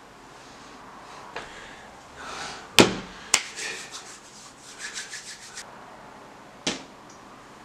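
Rubbing and rustling handling sounds, with two sharp knocks about half a second apart a little under three seconds in, a quick run of small ticks, and another sharp knock near the end.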